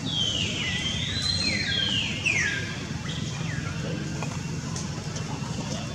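High whistle-like animal calls, each falling in pitch, about five of them close together and partly overlapping in the first three seconds, then a fainter one. A steady low hum runs underneath.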